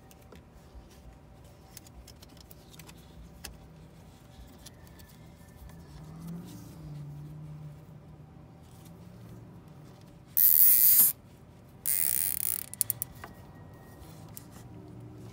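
Nylon zip ties pulled tight by hand: two loud ratcheting zips just over a second apart, past the middle, followed by a few sharp clicks, with light handling clicks of plastic before them.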